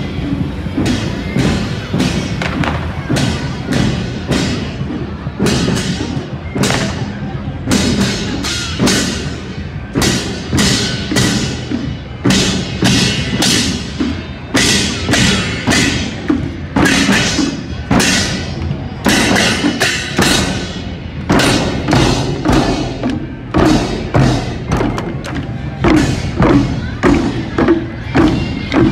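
A parade drum troupe beating drums while marching, a fast, uneven rhythm of sharp strikes with a crowd beneath.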